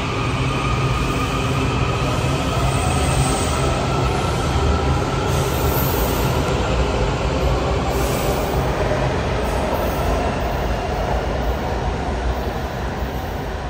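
WMATA 7000-series metro train pulling out of an underground station and accelerating away into the tunnel: continuous wheel and rail noise with a gliding whine from the motors, easing off slightly near the end.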